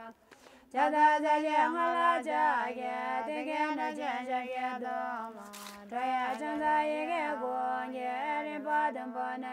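Women's voices singing a slow, unaccompanied melody over a steady low held note, with a short pause for breath just after the start before the singing resumes.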